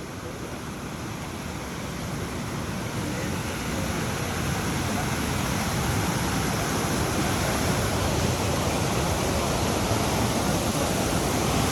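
Steady rushing of falling water from a waterfall, growing gradually louder.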